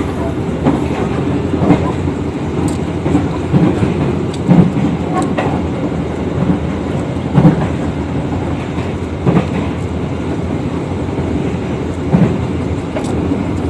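Passenger train running at speed, heard from inside the coach: a steady rumble of wheels on rails with irregular clunks every second or two as the wheels pass over the track.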